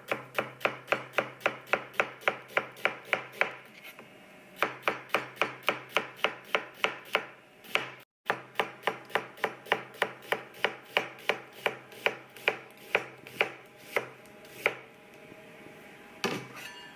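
Chef's knife slicing red onion on a wooden cutting board: quick, even knocks of the blade on the board, about four to five a second, with a short pause about a quarter of the way in. A faint steady hum sits underneath.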